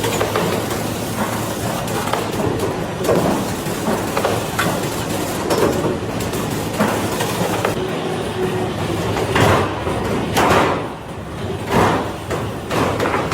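Factory machinery for making metal roofing sheets, running with a steady hum and irregular sharp knocks every second or two.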